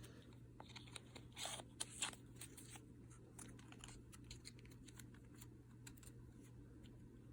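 Faint handling noises of small cosmetic products and packaging: a string of light clicks and taps, with a couple of brief rustles about one and a half to two seconds in.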